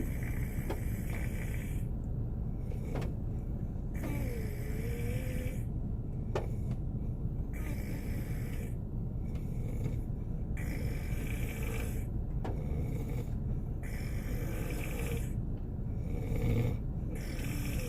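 A man snoring in a car, with a rasping breath about every three and a half seconds over a steady low rumble. A few faint clicks fall between the breaths.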